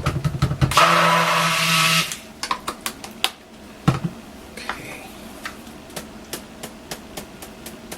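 Stick blender whirring in a cup of soap batter for about a second, blending in colorant, then light taps and clinks of utensils against the containers.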